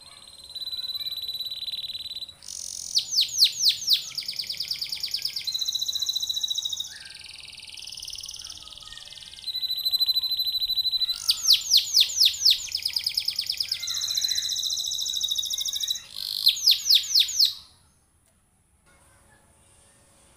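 Domestic canary singing a long varied song of held whistled notes, fast rolling trills and rapid runs of repeated sweeping notes. It stops about three seconds before the end.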